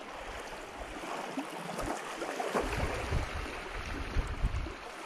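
Wind buffeting the microphone in uneven low gusts over a steady hiss of small waves lapping at the shore.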